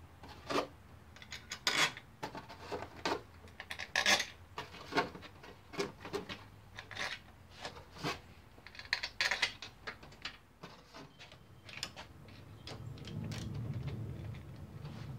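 Steel engine-cover bolts clinking and tapping as they are pulled from a cardboard holder and set into their holes in the side cover: a string of short, irregular metallic clicks. A low steady rumble starts near the end.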